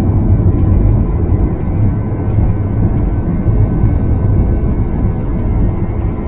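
Airbus A321 cabin noise during takeoff climb: a loud, steady rumble of the jet engines and rushing air, with faint steady whining tones above it.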